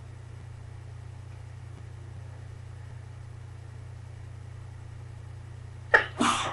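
A person sneezing near the end: a sharp catch of breath followed by a short burst of the sneeze itself, over a steady low hum.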